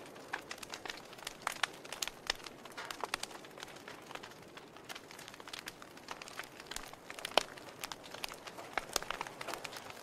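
Wood logs burning in a fireplace, crackling with irregular sharp pops over a soft hiss. One pop, a little over seven seconds in, is louder than the rest.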